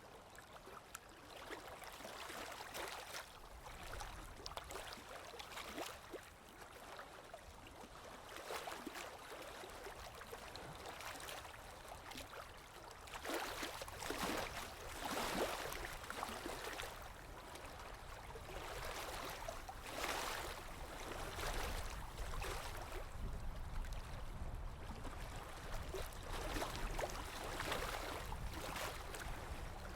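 Sea waves washing and lapping, swelling and ebbing in uneven surges, with the strongest surges about halfway through and again near the end.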